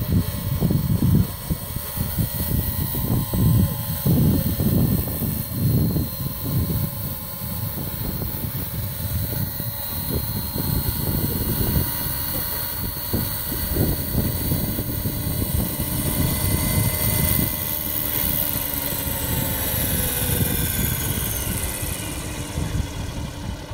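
Radio-controlled scale Alouette helicopter flying in, hovering low and landing, its motor and rotor giving a steady whine. Near the end the pitch falls away as the rotor winds down after touchdown.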